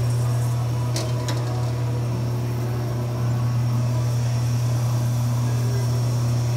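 Dake Parma 14-inch metal-cutting vertical band saw running at its slow speed, with the electric motor driving through a V-belt, three-step pulley and gearbox; a steady low hum. Two brief clicks sound about a second in.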